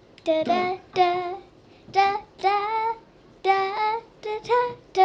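A child's voice singing the channel's short intro jingle unaccompanied: high sung notes in brief phrases with short pauses between.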